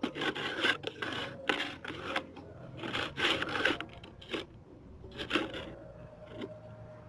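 Repeated rasping, rubbing strokes on a hard surface, about a dozen in irregular bunches, over a faint steady hum.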